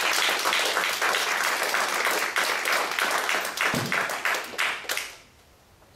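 A small audience applauding with many quick, overlapping claps, which die away about five seconds in.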